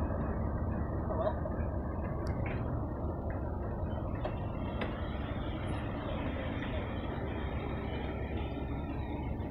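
Passenger coaches of a locomotive-hauled train rolling past close by: a steady wheel-on-rail noise, with the class 37 diesel locomotive at the head of the train drawing away.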